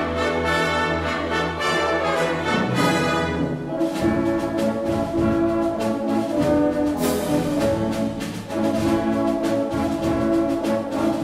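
A full symphony orchestra playing sustained chords, strings joined by brass; about four seconds in the music grows fuller, with the brass to the fore.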